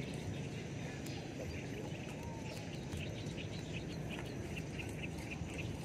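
Small birds chirping faintly and repeatedly over a steady low outdoor background rumble.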